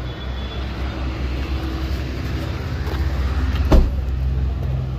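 Low steady rumble of a car and street traffic, with a single loud thump at the car's open boot about three and three-quarter seconds in as luggage is loaded.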